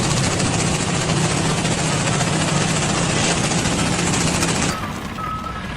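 Loud, dense mechanical rattling over a steady low hum, like heavy powered machinery running; it cuts off abruptly near the end, giving way to a quieter sound with a thin high tone.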